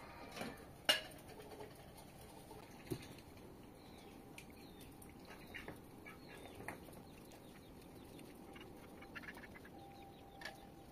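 Faint outdoor quiet with a knife peeling potatoes by hand: one sharp click about a second in and a few soft clicks and scrapes after. Faint bird and poultry calls in the background.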